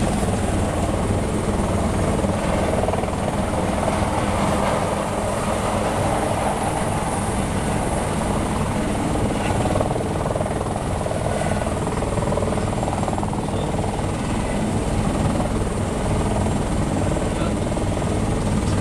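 Turboshaft tour helicopter running on the ground, a steady rapid rotor beat under a high thin turbine whine; its take-off has been aborted for an engine chip warning light.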